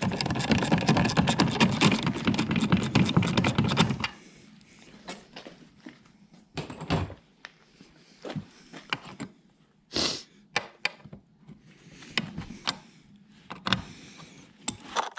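Rapid mechanical rattle for about four seconds, then scattered knocks and clicks of hardware being handled, with one short hiss about ten seconds in.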